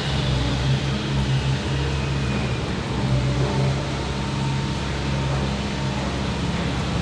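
A steady low mechanical hum over even background noise, with no distinct events.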